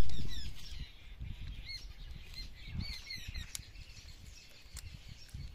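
Small birds chirping, with repeated short rising and falling calls and scattered sharp clicks. A loud low rustling noise at the start dies away within the first second.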